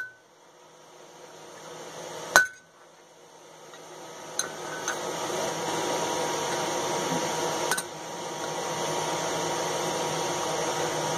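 A hand hammer strikes a ball punch held on hot flat steel on an anvil. It lands a few separate sharp blows a couple of seconds apart, each with a short metallic ring. The punch is sinking recesses for screw heads in a mounting hook.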